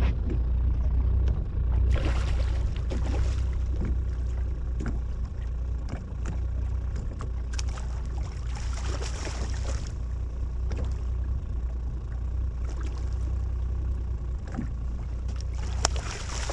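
Steady low rumble of wind and water around a small fishing boat, with a few light knocks scattered through.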